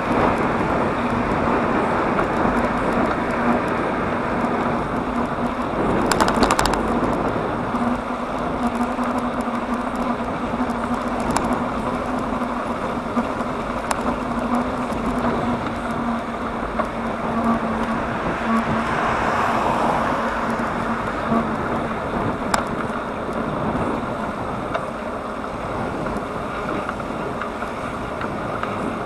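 Steady road and wind noise of a bicycle ride along a road with traffic. A low steady hum runs through most of it and fades out near the end. A brief louder rush comes about six seconds in.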